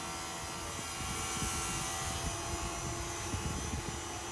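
Outdoor heat pump unit running: a steady low hum of the compressor under the even hiss of the condenser fan.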